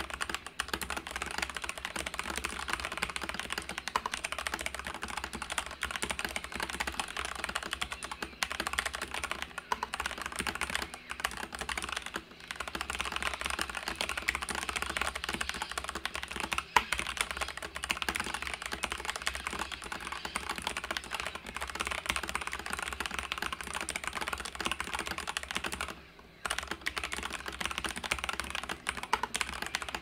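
Fast, continuous typing on a TM680 65% mechanical keyboard with stock, unmodified ART BOX Red switches and ePBT keycaps, on a desk mat, with a brief break in the keystrokes about 26 seconds in. The stabilized keys sound a little off, as if not travelling properly, which the typist puts down to warped PBT keycaps, though they don't rattle.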